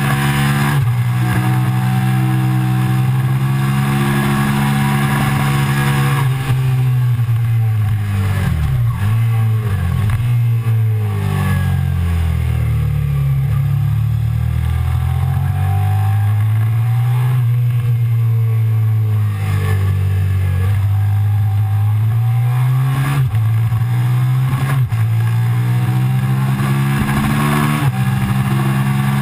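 Suzuki SV650's V-twin engine under load, heard from on the bike, its note rising and falling with the throttle and dropping and jumping in quick steps about a third of the way in as it changes gear, with steady wind rush over the fairing.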